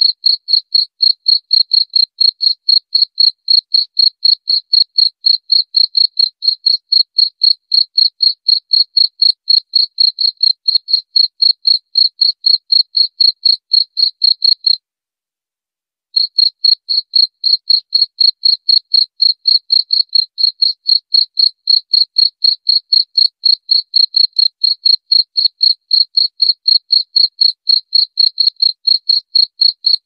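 A cricket chirping in a rapid, even string of high chirps. It stops for about a second and a half midway, then resumes the same chirping.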